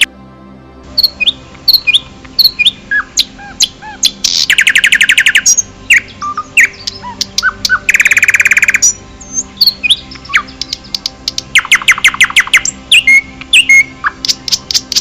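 Forest birds singing: scattered short chirps and whistles, broken up three times by a rapid trill lasting about a second.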